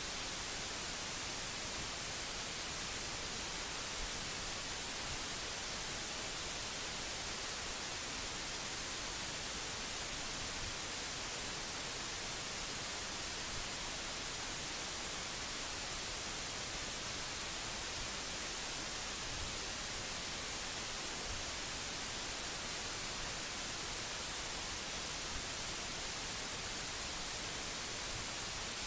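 Steady hiss of the recording's background noise, strongest in the high frequencies, with nothing else sounding.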